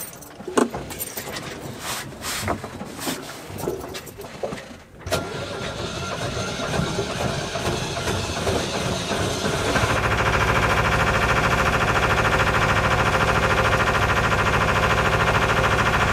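Water and wind noise with scattered knocks aboard a sailboat under way. About ten seconds in, the boat's engine comes in and runs steadily, motoring against the tidal current.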